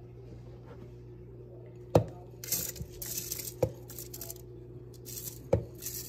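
Soaked, drained rice tipped from a bowl into a plastic blender jar: the wet grains slide and patter into the jar in a few runs, with three sharp knocks of the bowl against the jar.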